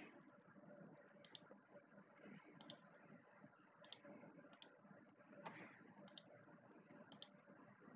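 About six faint computer mouse clicks, spaced roughly a second apart, over near-silent room tone.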